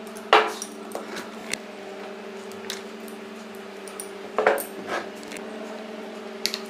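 A few scattered light clinks and knocks of bowls being handled on a wooden table, the strongest cluster about four and a half seconds in, over a steady low hum.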